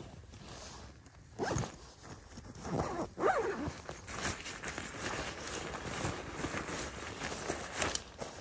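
A zipper pulled in two strokes, about a second and a half and three seconds in, followed by rustling and light clicks of handled gear.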